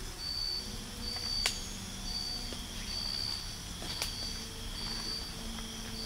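Night insect chirping: a high, thin chirp repeating about once a second, with faint held music tones underneath and two soft clicks.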